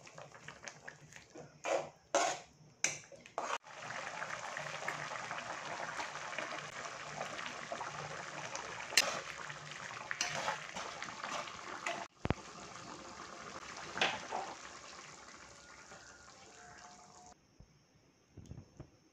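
Sauce sizzling and bubbling in a metal kadai on the flame while a ladle stirs and scrapes it, with a few sharp knocks of the ladle in the first few seconds. The sizzle cuts off suddenly near the end.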